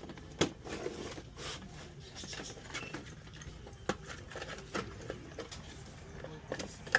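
Irregular sharp clicks and taps, about ten in seven seconds, over a low steady hum, from hands working on the freezer's control board and its wiring.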